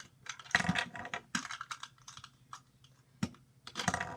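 Small plastic Luigi toys being handled and clicked together: an irregular run of light plastic clicks and knocks, with one sharp click a little after three seconds in.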